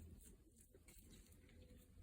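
Near silence: a faint low hum with a few soft ticks.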